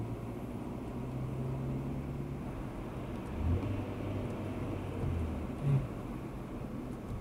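Car engine and road noise heard from inside a moving car: a steady low drone whose pitch steps down a little about three and a half seconds in, with two short low bumps, one then and one near the end.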